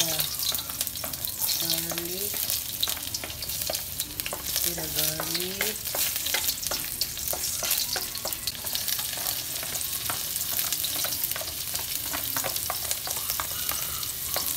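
Sliced garlic frying in hot oil in a metal wok, sizzling with dense crackling, while a wooden spatula stirs it around the pan.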